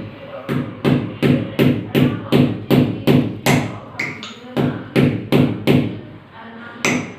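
Hammer blows driving a metal anchor fastener for a ceiling fan into a hole drilled in a concrete slab, about three strikes a second, each with a brief metallic ring. There is a run of about nine blows, a pause of about a second, then four more and a single last blow near the end.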